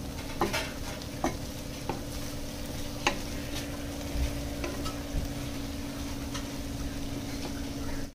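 Wooden spatula stirring okra in a thick yogurt-spice masala in a stainless steel pan, scraping and tapping against the metal every second or so over a steady sizzle. A steady low hum runs underneath.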